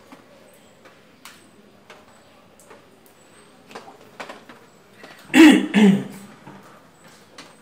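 A man clearing his throat in two quick, loud coughs about five and a half seconds in. Faint scattered light clicks are heard before it.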